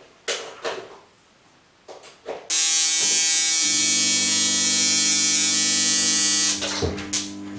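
A few clicks and knocks as the ultraviolet lamp machine is switched on, then a loud, steady electrical buzz for about four seconds as the lamp starts. A lower hum joins about a second after the buzz begins and keeps going after the buzz cuts off.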